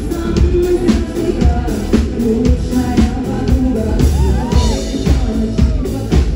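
Pop song played live: a woman singing into a microphone over a backing track with a steady dance beat, about two beats a second, and heavy bass.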